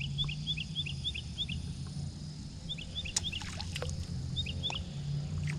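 A bird calling in rapid runs of short chirps, three bursts in all, over a steady low hum, with a few sharp clicks about three seconds in.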